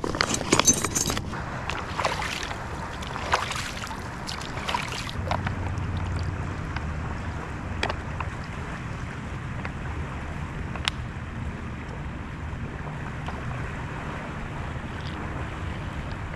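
Rustling and crinkling of a mesh gear pouch and backpack being handled for the first few seconds, then the steady rush of a flowing river with wind on the microphone.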